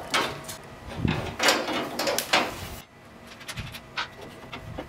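A long metal rail being handled and set against a wooden table frame: a series of knocks and short scrapes.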